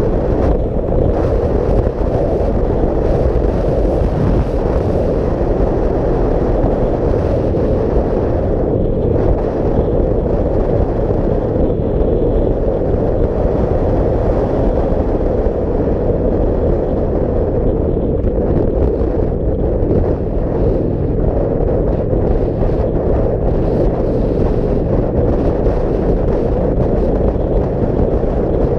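Wind buffeting the microphone over the steady drone of a Kawasaki Vulcan 900 cruiser's V-twin engine at road speed.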